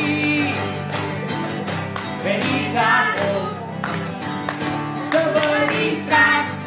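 Guitar strummed in a steady rhythm for a folk song, with children singing along.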